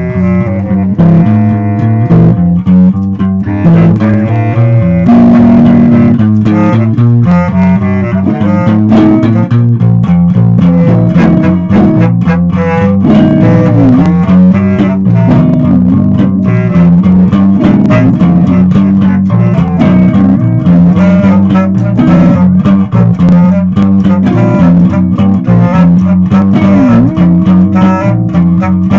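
Loose live jam with an electric bass line and a guitar playing together, steady and loud, with a few notes that slide down and back up in pitch.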